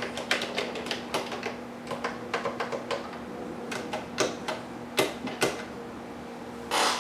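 Typing on an Epson QX-10 keyboard. A fast run of key clicks is followed by a short pause about three seconds in, then a handful of slower, separate keystrokes. Just before the end there is a brief, longer rasping noise.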